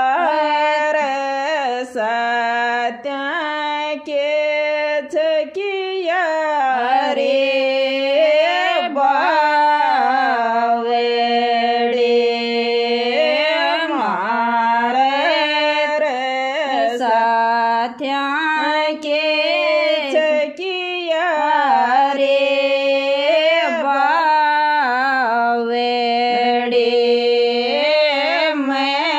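A woman singing a Rajasthani Tejaji folk devotional song solo, holding long drawn-out notes with sliding ornaments between them.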